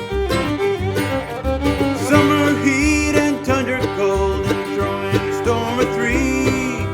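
Background music in a bluegrass style with fiddle, guitar and banjo over a steady beat.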